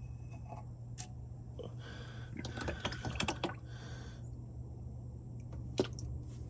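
Light metallic clicks and scrapes of tools working a stuck old oil filter loose. They come singly at first, thicken into a quick flurry a couple of seconds in, then thin out again.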